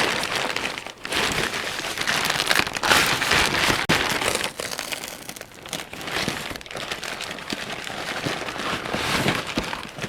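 Packaging crinkling and rustling continuously and irregularly as a cardboard box is unpacked by hand.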